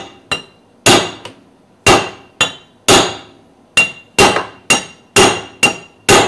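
Hammer blows on a steel pipe set over a bearing, driving it into a marine raw water pump's bearing housing. The blows come about one to two a second, each with a short metallic ring, some followed by a lighter tap.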